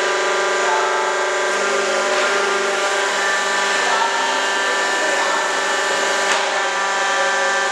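QFT5-20 semi-automatic hydraulic concrete block machine running: a steady, loud mechanical hum made of several steady tones over a noisy wash, with a light knock about six seconds in.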